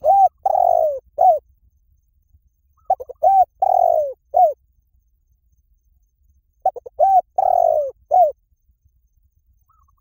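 Spotted dove cooing: three phrases a few seconds apart, each a couple of quick short notes, then a longer falling coo and a short closing coo.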